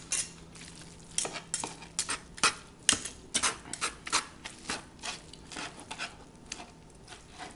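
Metal forks scraping and clicking against a plastic cutting board while shredding smoked pork butt. The strokes are short and irregular, roughly two or three a second.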